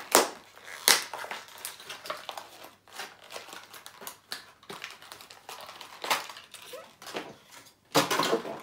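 Clear plastic toy packaging being crinkled and torn open by hand: irregular sharp crackles and rustles, loudest at the start, about a second in, and in a burst near the end.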